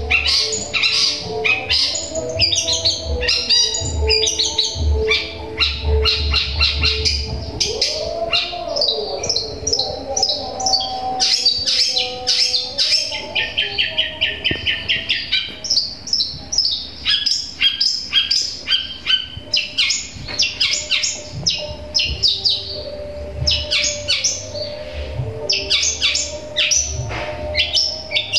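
Caged long-tailed shrike (cendet) singing long runs of rapid, high chirps mimicking tree sparrow calls and other wild-bird material, with a fast even trill about halfway through.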